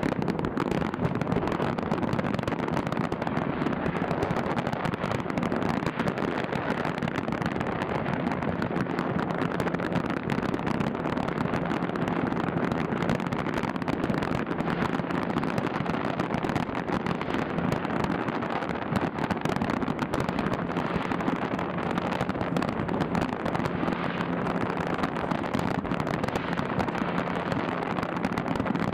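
Fireworks display in full barrage: a dense, continuous crackle of many bangs and pops running into one another, with a faint steady low hum underneath.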